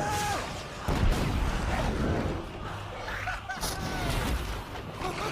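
Film battle sound effects: a heavy boom about a second in opens into a low rumble, with short arching cries and a brief hiss over it.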